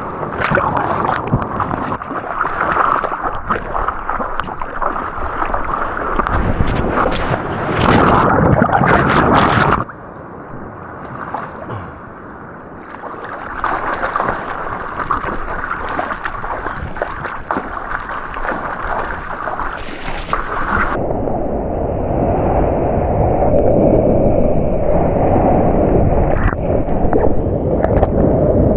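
Ocean water sloshing and splashing in the surf zone, with rushing noise on the microphone. It dips for a few seconds about ten seconds in and sounds duller and more muffled from about twenty seconds in.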